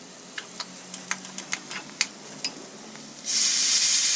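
A slotted steel spoon clicking and scraping against a kadhai while stirring dry spiced potatoes, then about three seconds in a sudden loud hiss as water is poured into the hot pan.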